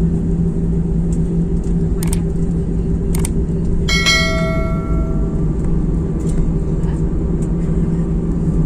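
Jet airliner cabin noise on the ground after landing: a loud, steady engine rumble with a low hum. Two sharp clicks come about two and three seconds in, and a bright bell-like ding at about four seconds fades over a second or so.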